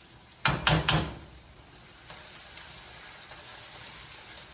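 Three quick sharp knocks, like a utensil striking the pot, about half a second in. Then onions, scallions and sweet peppers sauté in olive oil with a steady sizzle.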